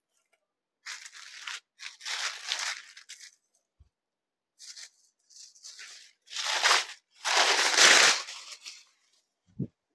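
A saree's fabric rustling as it is unfolded and spread out by hand, in several bursts, the loudest about eight seconds in.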